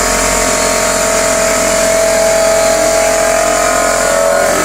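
Air compressor running: a steady motor whine over a broad hiss.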